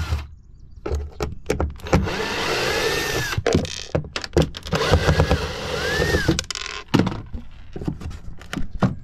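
Hands working on an old boat speaker to get at it: a run of knocks and clicks, with two stretches of scraping broken by short rising-and-falling squeaks.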